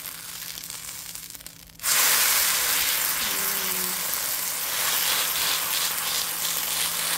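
A thin batter crepe sizzling on a hot griddle, a steady frying hiss that suddenly gets much louder about two seconds in.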